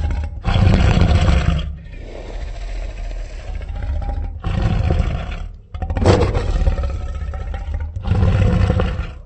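Dinosaur roar sound effects: a run of about five separate long, growling roars, each a second or two long, with short abrupt gaps between them.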